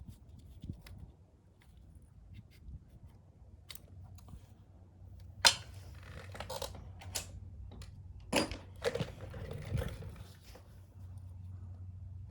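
Scattered clicks and clinks of small metal parts and tools being handled during motorcycle disassembly, the sharpest about five and a half seconds in and a few more over the next four seconds, over a faint steady hum.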